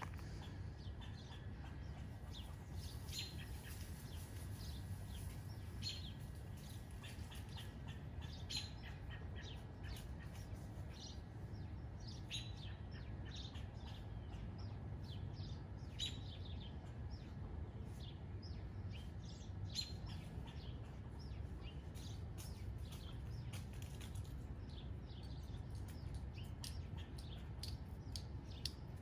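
Small birds chirping, many short high chirps scattered throughout, over a steady low background rumble.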